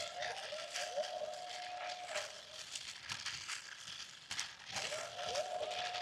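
Two small toy remote-control vehicles spinning in place, their little electric motors and plastic gears whirring with a steady whine in two stretches of about two seconds each, over continuous clicking and crackling.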